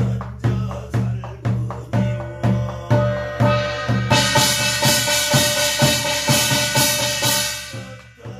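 Korean barrel drum (buk) beaten with a stick in a steady rhythm of about two strokes a second, each stroke booming low, under a chanted shamanic prayer. From about three seconds in a bright hiss joins, and it stops shortly before the drumming thins out near the end.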